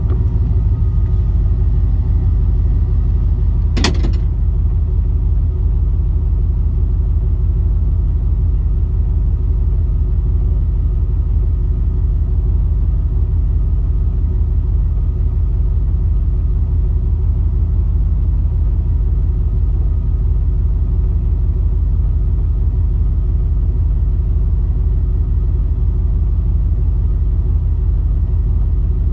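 Car engine idling, a steady low rumble heard from inside the cabin, with a single sharp click about four seconds in.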